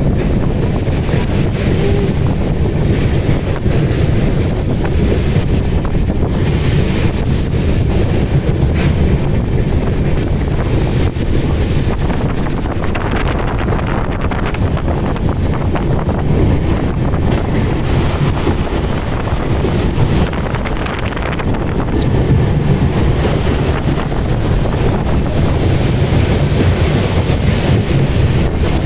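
Steady running rumble of a moving train, heard from an open door or window, with wind buffeting the microphone.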